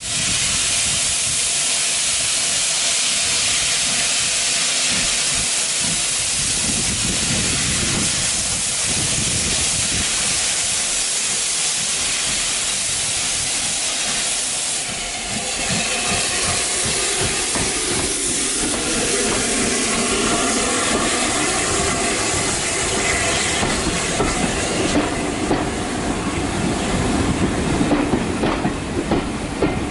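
A 1919 Hawthorn Leslie 0-6-0 saddle tank steam locomotive hissing steam as it works a train out of the station and past. About halfway through it goes by, and its coaches follow, rumbling, with wheels clacking over the rail joints.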